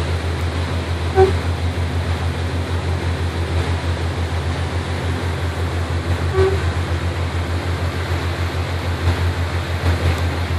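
Boat engine running steadily at low speed, a pulsing low drone over the hiss of water and wind. Two brief toots sound, about a second in and again about five seconds later.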